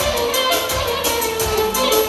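Band music with a steady beat and a sustained melody line.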